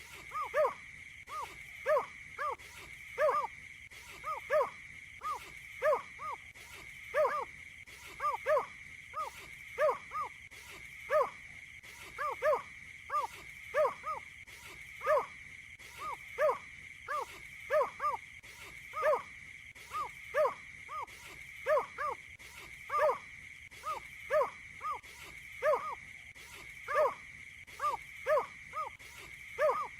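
Wetland bird calling: short, low, hollow call notes repeated about one to two times a second, in an uneven rhythm, over a steady high whine.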